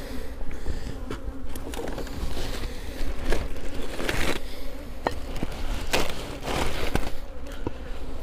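Honeybees humming steadily over an open hive, with scattered knocks and rustles as the wooden frames and hive are handled.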